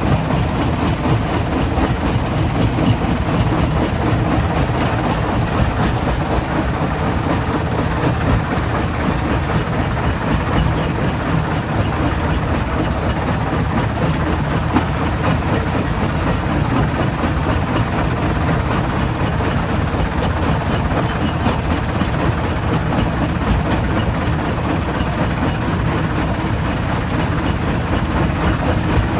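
Stone crusher plant machinery running steadily: a continuous dense rattle of rock over a low heavy-engine drone.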